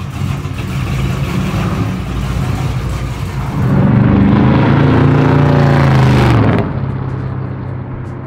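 1967 Chevy C10's 383 V8 running through a Black Widow exhaust with Neighbor Hater mufflers, routed out the back, as the truck drives by under throttle. The deep exhaust note swells and rises in pitch, then falls, and cuts off suddenly about two-thirds of the way through to a quieter engine sound.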